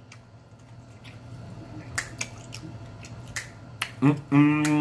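Several sharp finger snaps spaced a fraction of a second apart, then about four seconds in a man's closed-mouth 'mmm' hum of enjoyment, held on one steady pitch.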